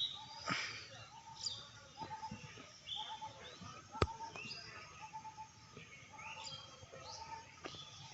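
Several birds chirping and calling, short high notes and quick sweeps overlapping, with a short lower note repeated again and again. A single sharp click about four seconds in.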